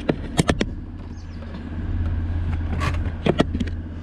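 Car driving slowly, heard from inside: a steady low engine and road rumble that grows louder about two seconds in, with several short sharp clicks and knocks.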